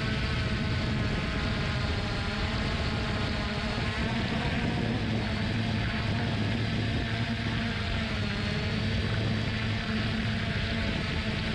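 3DR Solo quadcopter's four electric motors and propellers buzzing in flight, close to the GoPro mounted on the drone. The buzz is steady and multi-toned, and its pitch wavers slightly as the motors adjust.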